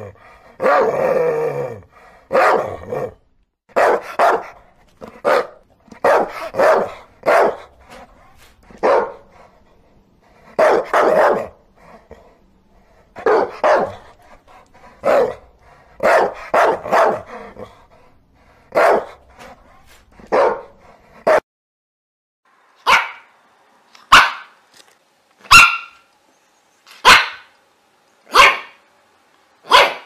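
Pinscher barking over and over, in single and clustered barks at uneven gaps, the first ones longer and rougher. About two thirds of the way through, the background drops away and the barks turn sharper and evenly spaced, roughly one every second and a half.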